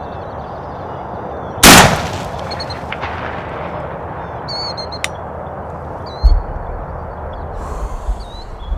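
A single shotgun blast at a turkey, about one and a half seconds in, ringing out as it fades. Small birds chirp afterward.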